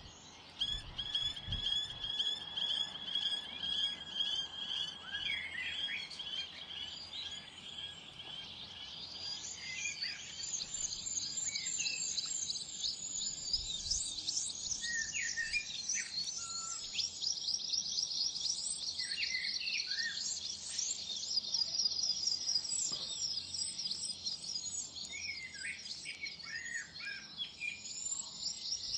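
Garden songbirds singing and calling at a bird feeder: long, rapid trills, with short chirps between them, and the trills growing stronger and higher about halfway through.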